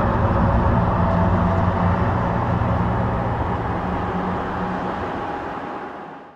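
A loud, steady low drone with several held tones layered over a rushing noise: the unexplained 'strange sound' from the sky or ground that people recorded, fading out near the end.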